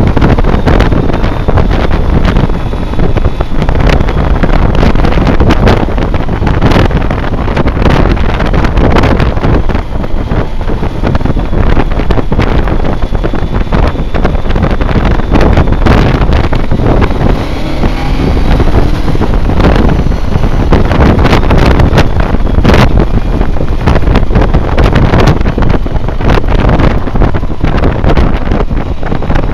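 Wind rushing and buffeting over the microphone of a motorcycle-mounted camcorder while a BMW K1200R Sport rides along at a steady road speed, its inline-four engine running underneath at steady moderate revs.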